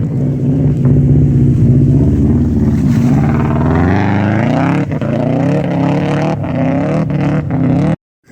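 Subaru car engine revving hard under load: held high at first, then climbing and dropping in pitch several times. It cuts off suddenly near the end.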